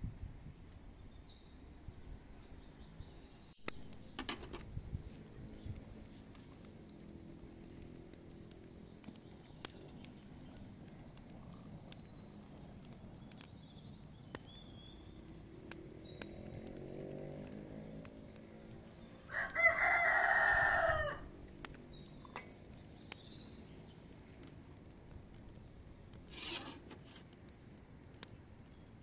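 A rooster crows once, loudly, for about a second and a half, a little past two-thirds of the way through. Small birds chirp faintly around it.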